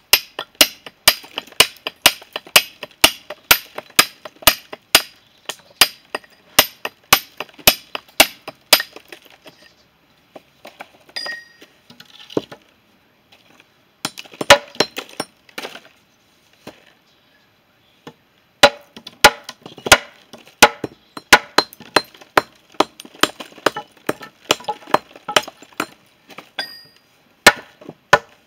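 Mason's hammer striking stone to dress a paving stone by hand: sharp, ringing clinks about two a second, in runs broken by a couple of short pauses.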